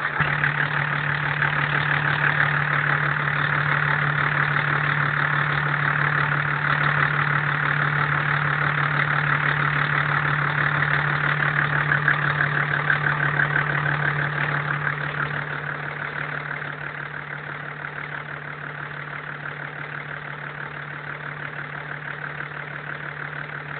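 Toyota HD-T series turbo-diesel straight-six running steadily at idle with a knock, the fault the owner is recording. It gets quieter about two-thirds of the way through.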